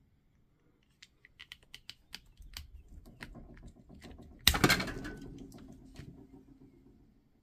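Hand wire stripper working on a thin wire: a series of small sharp clicks as the wire is set in the jaws, then one loud snap about four and a half seconds in as the insulation is pulled off, fading over the next second.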